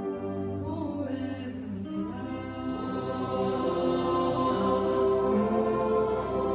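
Large mixed choir singing long held chords, growing louder about two seconds in.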